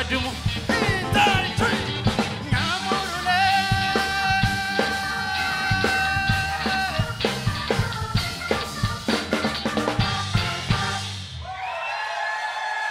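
Live band playing the last bars of a song: a sung line near the start, drum kit hits throughout and long held chords. About eleven and a half seconds in the band stops together, leaving a chord ringing on.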